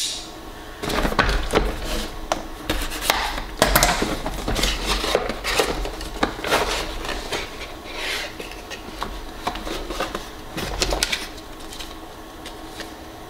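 Small cardboard box being opened by hand: a run of scrapes, taps and rustles from cardboard flaps and a paper card, thinning out near the end.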